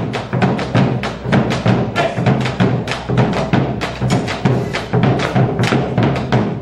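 Malambo dance performance: dancers' rapid zapateo, stamping heels and soles in quick, dense strikes, over music with a pulsing drum beat.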